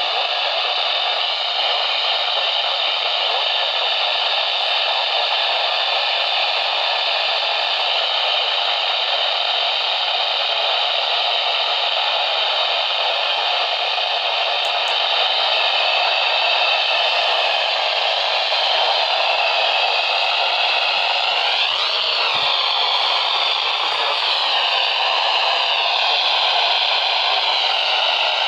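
Steady radio static: a band of receiver hiss with faint wavering tones in it that bend up and down in pitch about three-quarters of the way through and again shortly after.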